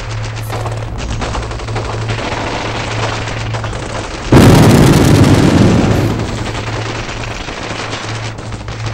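Added war sound effects: continuous rapid machine-gun fire over a steady low hum, with a sudden loud explosion about four seconds in that fades away over a couple of seconds.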